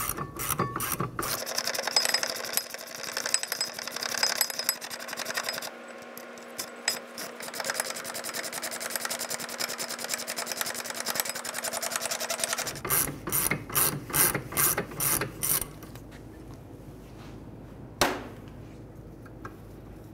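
Hand ratchet and socket backing out a rear brake caliper bracket bolt. The pawl clicks in quick runs at the start and again about two-thirds of the way through, with a rasping, rubbing stretch between them. There is a single sharp click near the end.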